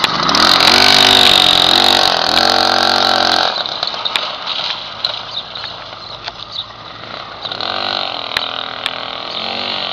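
Small moped engine revving loudly as the bike pulls away, its pitch rising and falling. After about three and a half seconds it drops to a fainter sound as the moped rides off into the distance.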